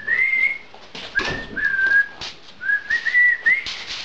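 A person whistling a short tune in three brief phrases of clear, sliding notes, with a few clicks and knocks in between.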